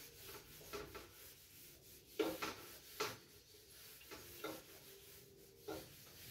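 Whiteboard eraser wiping marker off a whiteboard: a faint series of short rubbing strokes, irregularly spaced about a second apart.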